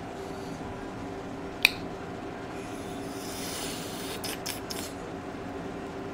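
Eating and handling sounds: a sharp click about a second and a half in, then a soft wet rustle and three quick clicks as food is dipped into a glass bowl of seafood-boil sauce, over a steady low hum.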